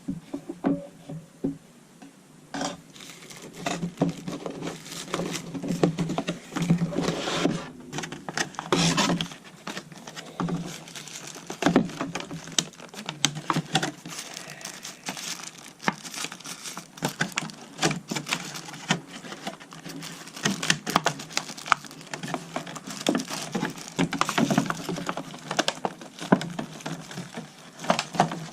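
Close-up handling noise of a small plastic device: irregular clicks, taps and plastic crinkling as four AA batteries are fitted into a wireless driveway alarm sensor.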